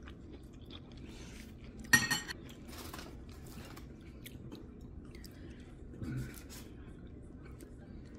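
Metal cutlery clinks sharply against a plate about two seconds in, with a short ringing tail. Fainter ticks and rustles of food being handled at the table follow.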